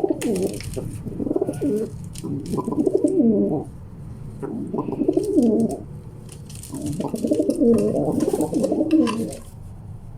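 Male rock pigeons cooing in five repeated bouts, the last and longest lasting about three seconds, with scattered sharp clicks between them as the birds fight over territory.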